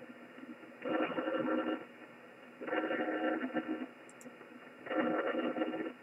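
Pulsing interference noise on the 15-meter band through a shortwave receiver in upper sideband: a buzzy burst about a second long comes three times, roughly every two seconds, with receiver hiss between. The owner wonders whether it is electrical interference.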